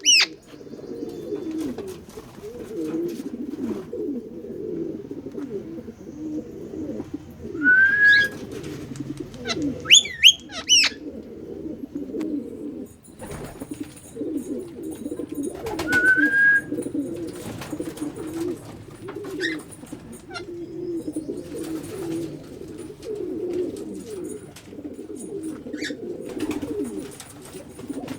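Birds: low cooing goes on without a break, cut by a few loud, sharp whistled calls that sweep in pitch, about 8, 10 and 16 seconds in.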